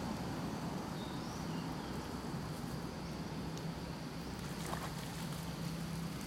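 Outdoor background noise with a steady low motor-like hum that sets in about a second and a half in, and a few faint high chirps about a second in.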